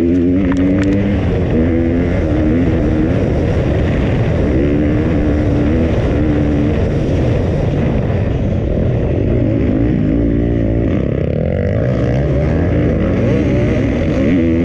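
2020 KTM 250 four-stroke motocross bike's single-cylinder engine, heard close up from the rider's helmet, revving up and dropping back again and again as it is ridden hard through the gears. A few short sharp clicks sound about half a second in.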